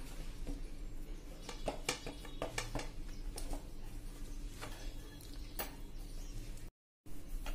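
Hands rolling and pressing soft dough on a plastic cutting board: scattered light taps and clicks over a low steady hum, with the sound cutting out briefly near the end.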